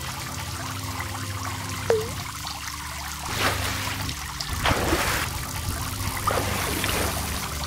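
Intro sound effects: water trickling over a low steady hum, with a few brief swishing swells in the second half.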